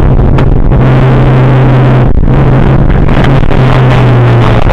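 Škoda Felicia rally car's 1.3-litre four-cylinder engine running loud at steady revs, heard from inside the cabin, with the engine note dipping briefly a few times.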